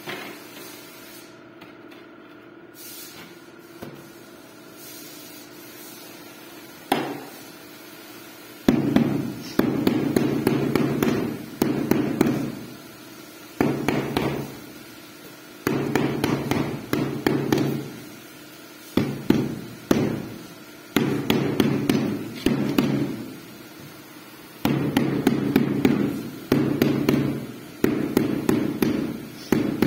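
Rubber mallet tapping a large floor tile down into its mortar bed, bedding and levelling it. The taps come in quick runs a second or two long with short pauses between, starting about seven seconds in after a faint steady hum.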